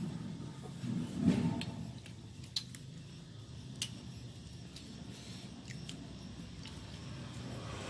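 Eating noises: scattered sharp wet clicks of chewing boiled buffalo skin, with a louder burst about a second in, over a low steady hum.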